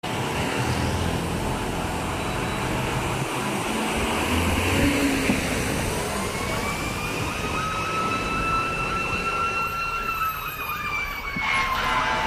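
Fire engine siren approaching through traffic: a wail that climbs in pitch about six seconds in, holds high with a rapid wavering, then falls near the end. Buses and cars pass underneath it.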